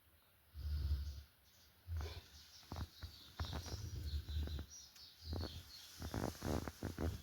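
Golden retriever snoring in its sleep, a run of short, low snores and snorts about once a second. Faint bird chirps come through in the middle.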